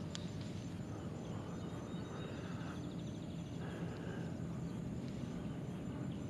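Steady low outdoor background rumble, with a faint rapid ticking for about a second starting around two and a half seconds in.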